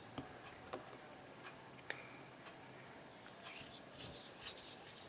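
Faint handling of modelling clay: a few small clicks in the first two seconds, then soft rubbing from about three seconds in, as of clay being rolled between the fingers into little gumballs.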